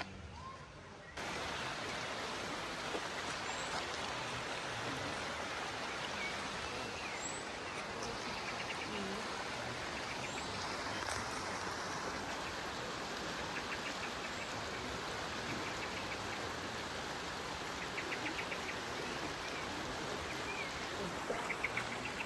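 Waterfall rushing steadily; the sound comes in suddenly about a second in. Faint chirps and a few short trills sound over it.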